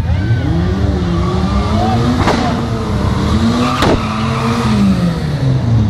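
Car engines idling, one revved so its note rises and falls, with two sharp cracks about a second and a half apart.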